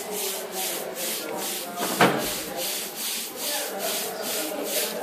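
Inked engraving plate being wiped with a wad of cloth in quick back-and-forth strokes, a rhythmic scrubbing at about three strokes a second, the preliminary wipe of the ink before the plate is cleaned for printing. A single knock about two seconds in.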